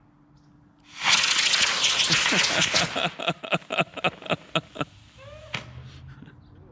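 Model rocket engine firing with a loud hiss about a second in, for about two seconds, then breaking into a quick run of crackling pops, about four a second, that die away as it burns out.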